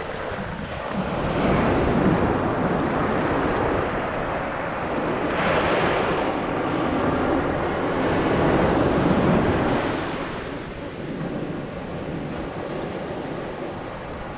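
Ocean surf breaking on a beach in slow swells that rise and ease every few seconds, with wind on the microphone.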